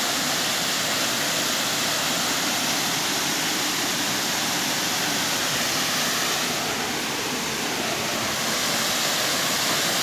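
Small waterfall pouring down a rock face into a plunge pool: a steady rush of falling water.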